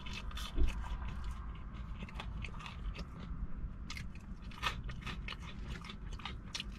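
A person chewing and biting food close to the microphone: irregular crisp crunches and wet mouth clicks over a low steady rumble.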